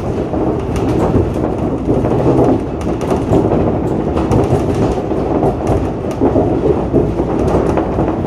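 Shonan Monorail 5000 series suspended monorail car running along its overhead track, heard from inside the front cab: a steady, loud rumble of the running gear, with scattered light clicks and rattles.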